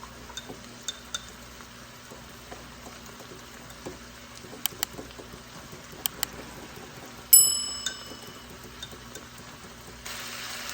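Kitchen handling noises: a few light clicks and taps, then one loud metal clank that rings briefly and fades. Near the end, food sizzling in a hot pan starts up.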